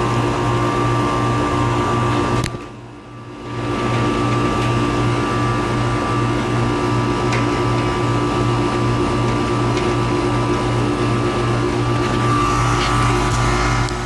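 An outdoor air-conditioner condenser unit runs, its fan motor and compressor giving a steady hum with a regular pulsing rattle. The rattle is blamed on a loose screw in the unit's cabinet. The sound dips away briefly about two and a half seconds in.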